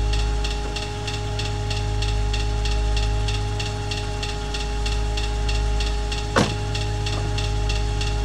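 Droning suspense score with a low hum and two held tones under a steady ticking pulse of about three to four ticks a second, cut by one short sharp swoosh about six seconds in.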